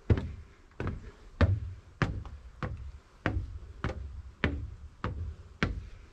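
A hiker's footsteps on a mountain trail at a steady walking pace, each step a dull thud with a sharp click, a little under two steps a second.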